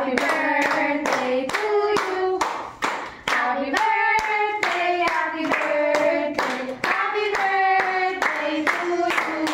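People singing a birthday song together, clapping in time, about three claps a second.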